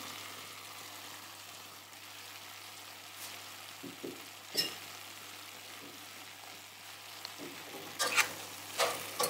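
Chicken, quince and dried apricots sizzling quietly in a stainless steel pot, with a light click about halfway. Near the end a metal spoon starts stirring, scraping and knocking against the pot a few times.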